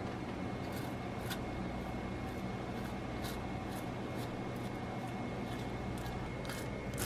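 Metal-tined uncapping comb scraping the wax cappings off a frame of capped honeycomb before honey extraction: a series of short, light scratching strokes at irregular intervals over a steady low hum.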